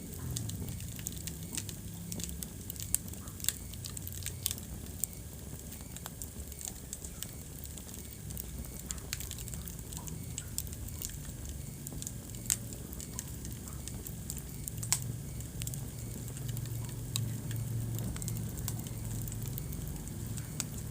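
Wood fire in a fireplace crackling steadily, with many small ticks and a few louder sharp pops scattered through, over a low rumble of the burning.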